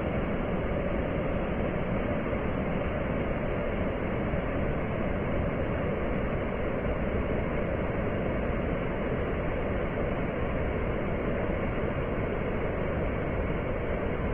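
Flood-swollen, muddy river rushing and churning through white-water rapids over rocks after torrential rain: a steady, unbroken rush of water.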